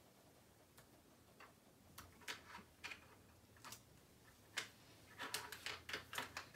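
Laptop keyboard keys clicking under typing: a few scattered keystrokes, then a quick flurry of them near the end.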